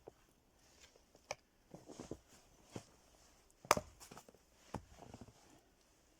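Scattered wooden knocks and clatter of firewood being split and handled, the loudest a sharp knock a little past halfway.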